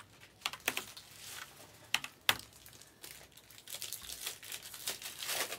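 Trading cards and foil card-pack wrappers being handled, with soft crinkling and scattered small clicks. Two sharper ticks come a little after two seconds in.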